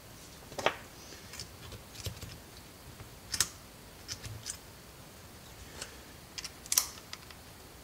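Scattered small, sharp metallic clicks as a steel snap ring is worked around the edge of an impact driver's 1/4-inch hex collet and seated in its groove, with a louder click midway and another near the end.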